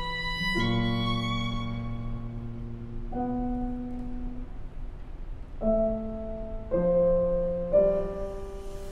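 Violin, clarinet and piano trio playing classical chamber music: a slow passage of sustained notes, with the chord changing about every one to two and a half seconds.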